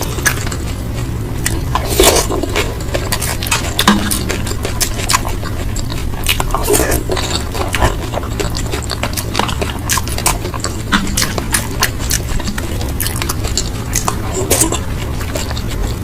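Close-miked eating: chewing and mouth smacks with many short, sharp clicks throughout, over a steady low hum.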